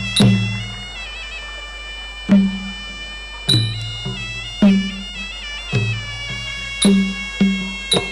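Traditional Khmer boxing music: a sralai reed oboe plays a continuous, unbroken melody over deep drum strokes about once a second.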